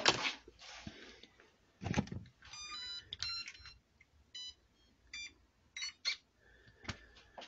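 Start-up beeps of the HBX 18859A RC truck's electronics as it is powered on: a string of short electronic beeps of several pitches, mixed with a few clicks and knocks as the truck is handled, the loudest knock about two seconds in.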